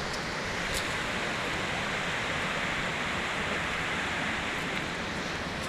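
Rushing water, a steady even noise with no change in level.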